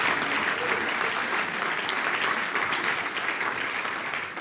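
Audience applauding, many hands clapping at once, the clapping easing off slightly near the end.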